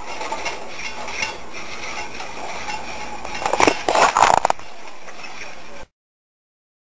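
Metal utensil clinking and scraping against a skillet over a steady hiss, with a cluster of louder clatters about three and a half seconds in. The sound cuts off abruptly near the end.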